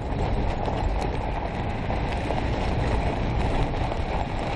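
Steady low rumbling noise with no voices.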